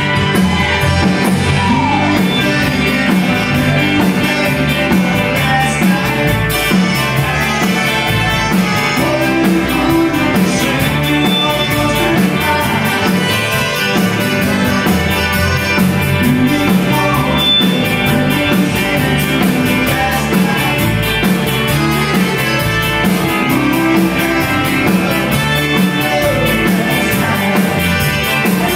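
Live Tex-Mex band playing a country-rock song, with electric guitar, button accordion, drum kit and keyboard over a steady beat.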